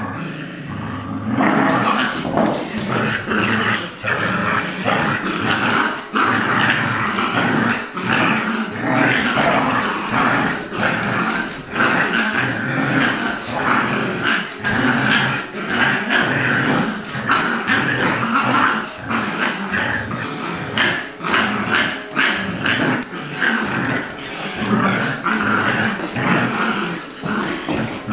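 A Labrador mix and a six-week-old Golden Retriever puppy growling in play as they tug against each other on a rope toy. The growling is loud and goes on almost without pause, broken into many short bursts.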